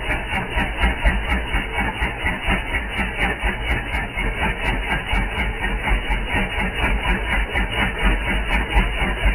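Cordless tyre inflator's small electric motor and piston pump running steadily, with a fast, even pulsing.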